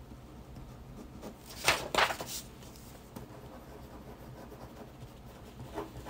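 Pen scratching on paper while writing, faint, with two short louder hissing bursts about two seconds in.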